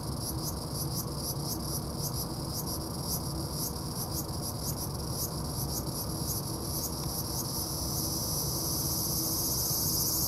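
Cicadas singing loudly in a high-pitched pulsing call, a few pulses a second, that merges into a continuous buzz and grows louder about eight seconds in.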